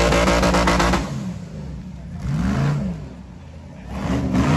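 Off-road hill-climb buggy engine revving hard in repeated throttle bursts, its pitch rising and falling with each blip: a long loud rev at the start, then shorter blips about halfway through and near the end.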